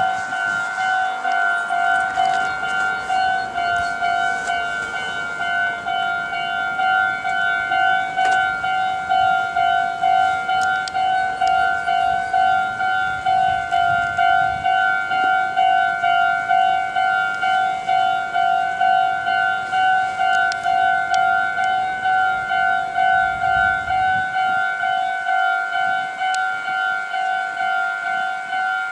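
Japanese railway level-crossing warning bell: an electronic ding repeating steadily at about two strokes a second, the signal that a train is approaching and the crossing is closed.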